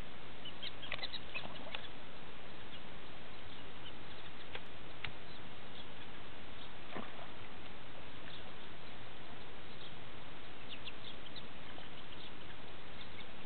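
Domestic ducks on a pond giving scattered short, high-pitched peeps and squeaks over a steady hiss. The peeps come in small clusters, more of them near the start and around two-thirds of the way through.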